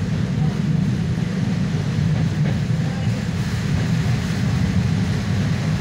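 Naples Metro Line 1 train running along the track, a steady low rumble of wheels and motors heard from inside the train.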